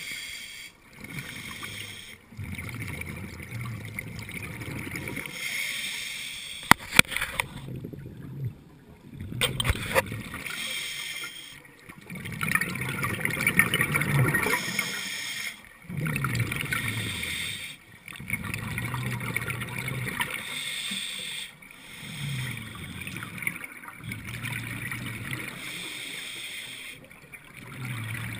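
Scuba diver breathing through a regulator underwater: repeated gurgling rushes of exhaled bubbles with short pauses between breaths, heard through the camera housing. A few sharp knocks come twice, about a quarter and a third of the way in.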